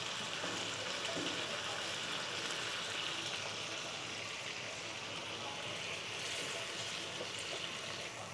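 Spiced vegetables sizzling and bubbling steadily in a hot nonstick pan as a little water is added, with a wooden spatula stirring through them.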